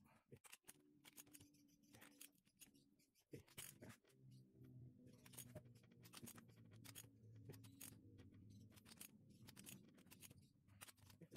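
Faint run of short, sharp clicks from a ratchet wrench tightening the cylinder-head nuts on a Honda GL Max Neotech engine, over a faint low hum.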